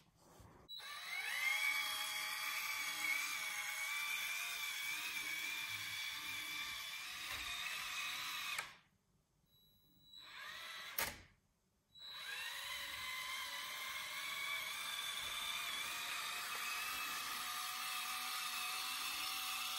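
Small Circuitcube electric drive motor and gearing of a LEGO shunter locomotive whining as it runs along the track. It spins up about a second in and runs steadily, then stops for about three seconds, with one click in the pause, before starting up again.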